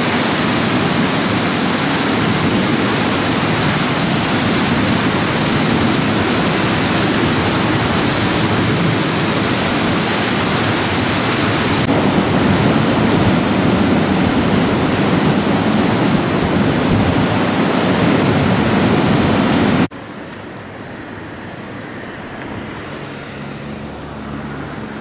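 River rapids rushing over limestone rock: a loud, steady churning of whitewater. About 20 seconds in, the sound cuts off abruptly to a much quieter outdoor hiss with a faint low hum.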